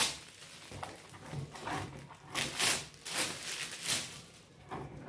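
Metallic foil gift wrap being pulled and torn off a cardboard box, crinkling in a series of short bursts.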